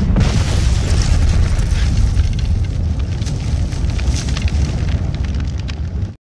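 Explosion sound effect: a heavy low rumble with scattered crackles, going on at a high level after the blast and cutting off suddenly near the end.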